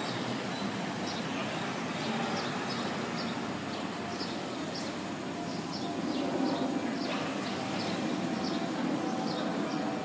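City street ambience: a steady hum of traffic, with small birds chirping in short, high notes about once or twice a second.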